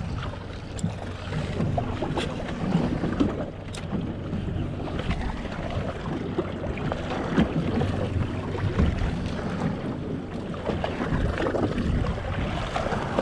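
Wind buffeting the microphone and waves slapping against a small boat's hull at sea, in uneven gusts, over a faint steady low hum.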